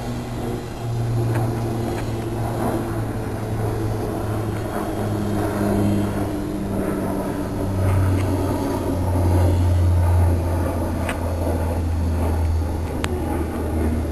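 A low engine drone, shifting slightly in pitch and loudest about eight to ten seconds in.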